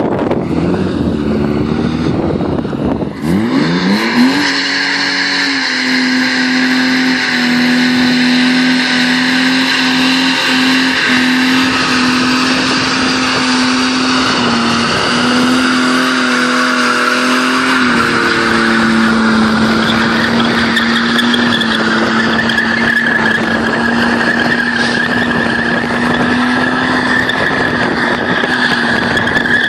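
BMW E36 320i's M50B20 two-litre straight-six revved hard and held at high revs in a burnout, the rear tyres spinning and squealing on asphalt. The revs sweep up sharply a few seconds in, hold a steady pitch, and dip slightly about halfway through as the squeal grows louder.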